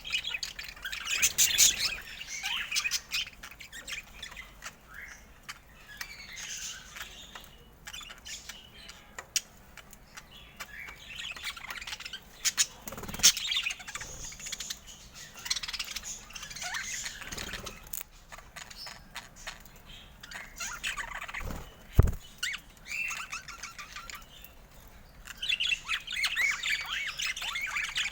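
Pet budgerigars chirping and warbling in quick, scattered bursts, busiest near the start and the end, with a few sharp clicks or knocks in between.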